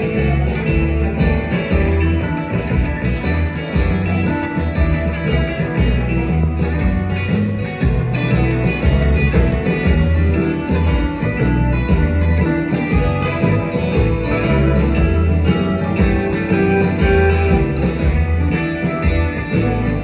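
Live rock band playing a blues-rock song, with piano, drums, bass and guitar, recorded from the audience seats of a theatre.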